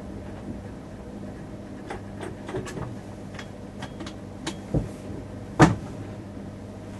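Cab of a stationary X31 Öresundståg electric train: steady low hum of onboard equipment, with a run of sharp clicks and knocks from about two seconds in, the loudest about five and a half seconds in.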